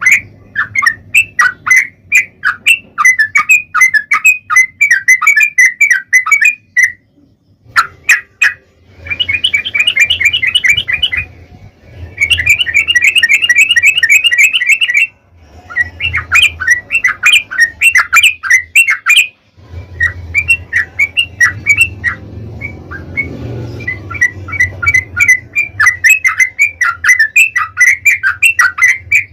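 Yellow-vented bulbul (trucukan) chattering in long runs of quick, bubbly notes, broken by short pauses, with stretches of very fast trilling about a third of the way in and again just before halfway. A steady low hum runs beneath.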